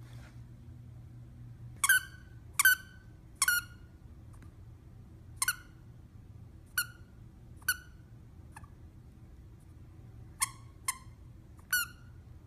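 Squeaker inside a plush dog toy, squeezed about ten times as a small dog chews it: short, high squeaks at uneven intervals, three in quick succession early on and three more near the end.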